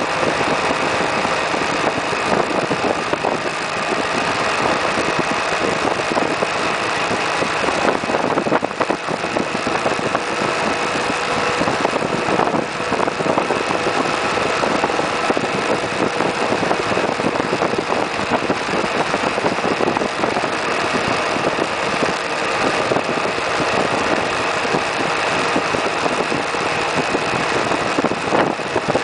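Suzuki Burgman 650 maxi-scooter's parallel-twin engine running at a steady cruise, under a continuous rush of wind and road noise. It is even throughout, with no change in engine speed.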